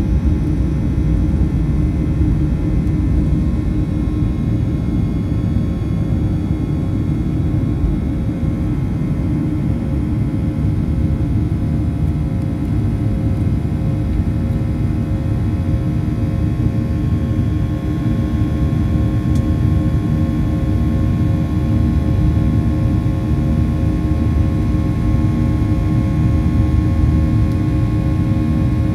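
Boeing 737-800's CFM56 jet engines running: a steady, dense rumble with several steady tones over it, one of them growing stronger about halfway through.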